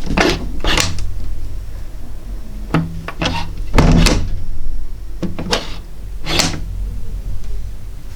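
A door being opened and closed over and over: sharp latch clicks and knocks coming in pairs, about six or seven in all, over a steady low hum.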